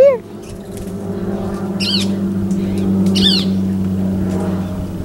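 Three sharp bird calls, each a quick rising-then-falling note, near the start, about two seconds in and about three seconds in, over the steady low drone of an airplane passing overhead that swells toward the middle. The calls seem to be alarm calls set off by the airplane noise.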